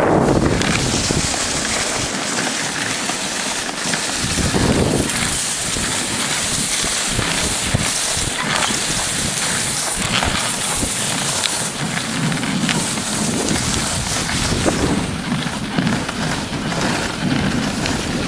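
Steady rushing wind noise buffeting the microphone on a moving dog sled, with a few faint clicks.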